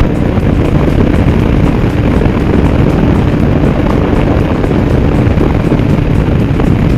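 Steady loud rush of wind on the microphone over a vehicle's engine running at road speed.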